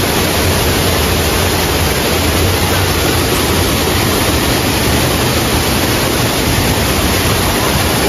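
Waterfall: the steady, loud rush of falling water, even throughout.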